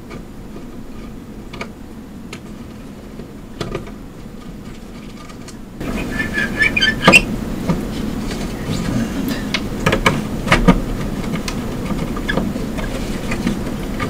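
Light metallic clicks of a screwdriver working screws out of the Kaypro II's sheet-metal chassis. About six seconds in the level jumps up abruptly, and handling noise follows: knocks, clicks and rustling as hands work the cables and power-supply board inside the case.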